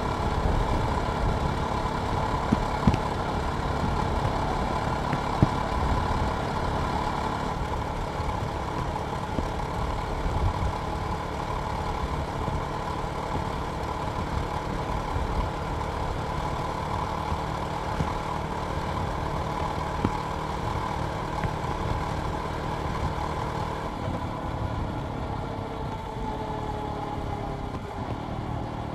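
Jawa Perak's single-cylinder engine running steadily, its note falling over the last few seconds as the bike slows.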